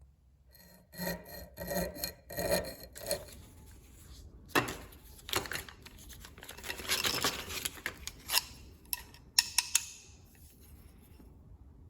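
Hand-worked rasping strokes on the steel knife: a few evenly spaced strokes, then a run of longer, irregular scraping with a couple of sharp clicks near the end.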